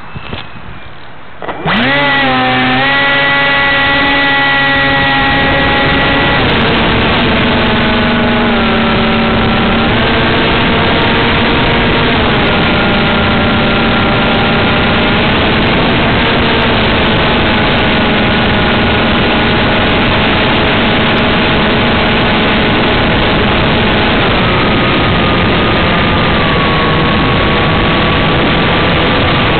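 Motor and propeller of a small FPV radio-controlled plane, heard through the camera riding on it. The motor starts up suddenly about two seconds in, then runs loud and steady with a whine that shifts in pitch a few times as the throttle changes, over a rushing hiss of air and propeller noise.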